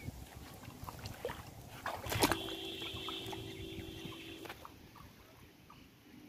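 Water sloshing and small splashes as someone wades in a shallow pond choked with water hyacinth and gropes under the surface for a submerged clay pot. About two seconds in, a steady pitched tone of unclear origin starts with a click, runs for about two seconds and stops. The water sounds fade quieter toward the end.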